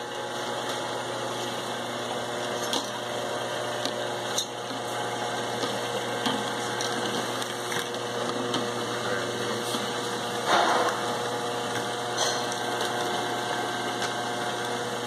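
Pharmafill powered rotary turntable and bottle conveyor running: a steady motor and drive hum, with scattered light knocks of plastic bottles against each other and the guide rails. A louder clatter about ten and a half seconds in.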